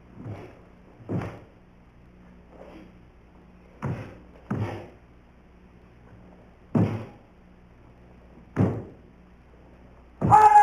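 Karate kata being performed: about seven dull thumps of feet stamping and stepping on the floor, spaced a second or two apart. Near the end comes a loud, sharp kiai shout.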